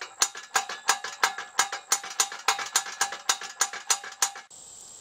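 Ratchet of a hand winch clicking fast and evenly, about four to five ringing metallic clicks a second, as the pump cylinder and sucker rod are hoisted out of the well. The clicking stops abruptly about four and a half seconds in, leaving crickets chirping.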